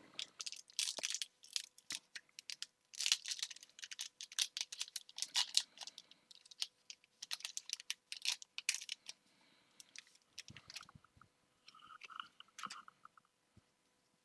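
Foil Pokémon booster pack being torn open and crinkled: a dense run of sharp, irregular crackles that thins out toward the end.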